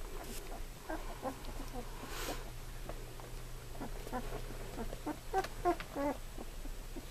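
Two-week-old golden retriever puppies squeaking and whimpering in many short calls, with a few louder squeaks about five to six seconds in.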